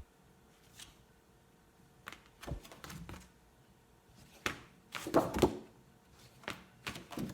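Scattered light knocks and rustles of picture flashcards being handled and turned over, with a denser, louder cluster about five seconds in.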